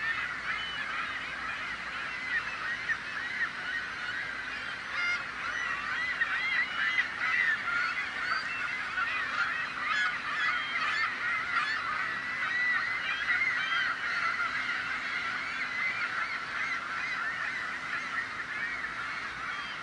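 A crowd of seagulls calling all at once: a dense din of overlapping short squawks and cries, with no pauses.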